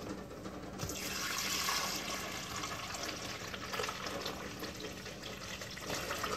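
Water being poured into a drip coffee maker's water reservoir: a steady pour that starts about a second in and keeps going.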